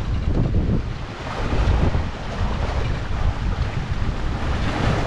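Wind buffeting the microphone over water rushing along the hull of a sailboat under way, a loud uneven rush that dips briefly about a second in.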